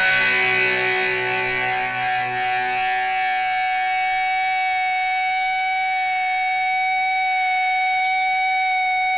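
Opening of a punk rock song: a single distorted electric guitar chord struck once and left ringing, steady and sustained for about nine seconds.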